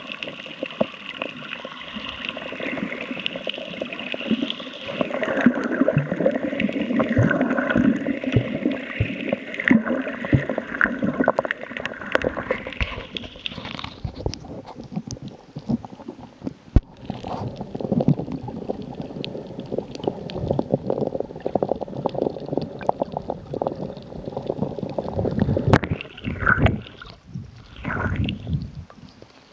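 Muffled underwater sound from a camera below the surface: water sloshing and bubbling, with many scattered small clicks and knocks, busier in the first half.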